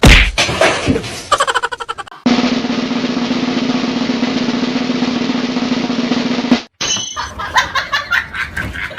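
Drumming: a snare drum roll held for about four seconds, with sharp drum hits before and after it.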